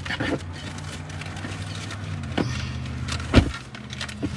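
Car engine idling, heard from inside the cabin as a steady low hum, with a few short clicks and one sharp thump about three and a half seconds in.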